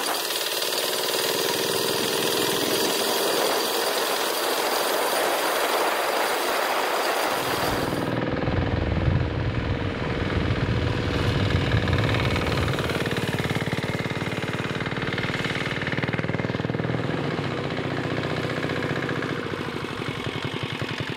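Single-cylinder air-cooled diesel engine (Jintian 165F, 199cc) of a mini bike running under way with a steady knocking rhythm, like a jackhammer. For the first few seconds it is heard close up from the rider's camera, under a hiss of wind. About eight seconds in, the sound switches to a fuller, deeper knocking heard from the roadside as the bike rides toward it.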